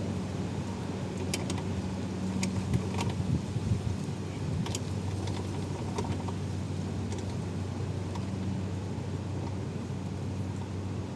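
Scattered light metallic clinks and knocks of hand tools and brake parts being handled, over a steady low hum.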